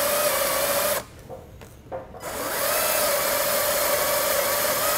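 Greenworks cordless drill running with its bit cutting into the steel motorcycle swingarm, a steady motor whine. It stops about a second in and starts again about a second later, drilling a shallow locating hole to depth.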